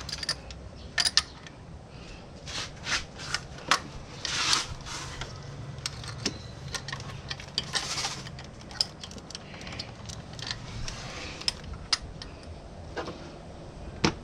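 Irregular metallic clicks and clinks of a socket being forced in against the engine parts around the MAP sensor, with two short scraping rustles along the way.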